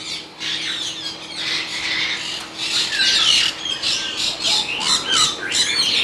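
Caged parrots, lories among them, screeching and squawking in a continuous chorus of many short, overlapping calls.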